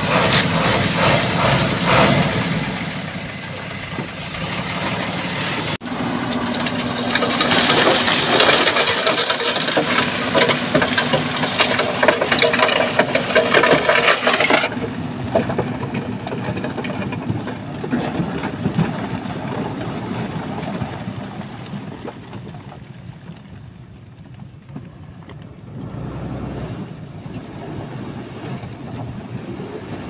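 Heavy earthmoving machinery's diesel engines running and working steadily. The sound changes abruptly about 6 and 15 seconds in, and after the second change it is duller and quieter.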